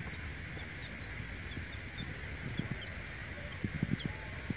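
Domestic chicks peeping now and then in short, faint, high chirps over a steady outdoor hiss. A few short low thumps come near the end.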